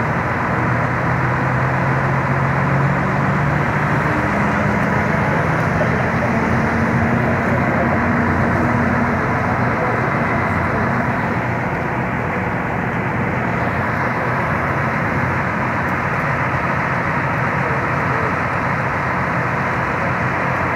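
Diesel cog-railway locomotive running close by, a steady loud engine noise whose low note rises over the first several seconds.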